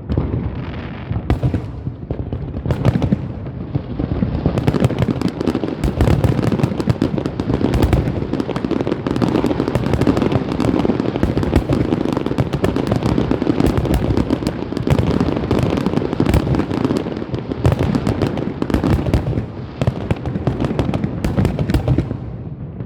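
Fireworks going off in a dense barrage: rapid bangs and crackles over a continuous rumble, thinning out near the end.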